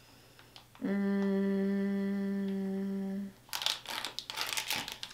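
A person humming one long, steady 'hmm' note for about two and a half seconds. Then comes a short spell of crinkling from a plastic snack wrapper being handled.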